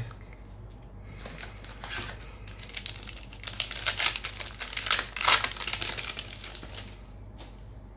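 Foil wrapper of a Flesh and Blood trading-card booster pack crinkling in the hands as it is torn open. The crackling is loudest about four to five and a half seconds in.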